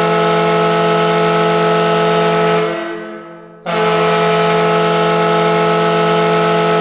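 New Jersey Devils retro arena goal horn blowing a steady chord. The first long blast fades out about three seconds in, and a second blast starts right after it.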